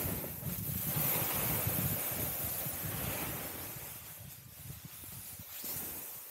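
Snowboard sliding and scraping over soft snow, with wind noise on the microphone. The hiss fades gradually as the board slows.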